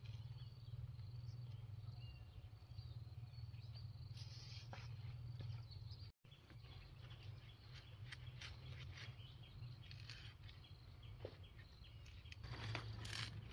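Faint outdoor ambience: a low steady hum with scattered light ticks and rustles, which grow busier near the end, and a momentary dropout about six seconds in.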